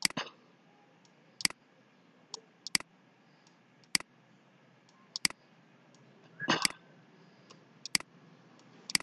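Computer mouse clicking, about ten sharp single clicks at irregular intervals, while handwriting is drawn on screen with the mouse.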